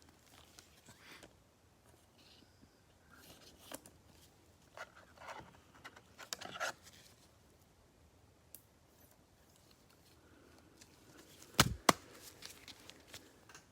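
Faint rustling, scraping and tearing of cardboard and plastic wrap as a Prizm football trading-card hanger box is opened and its cards handled, with two sharp knocks close together near the end.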